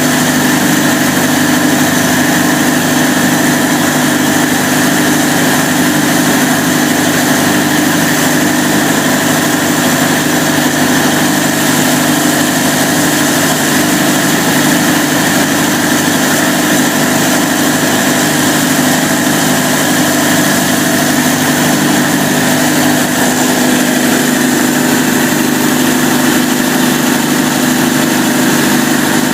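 Cummins KTA38-G4 diesel generator set's V12 turbocharged diesel engine running loud and steady, with no change in pitch or level.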